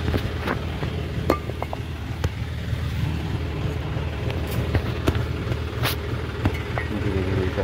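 Tractor engine idling steadily, with sharp knocks and clinks as clay bricks are thrown down from the tractor trolley onto the ground.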